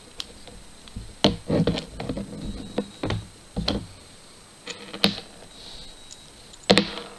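Scattered clicks and taps of steel screwdriver bits and a bit-holder extension being handled and fitted together, with a sharp click about a second in and another near the end.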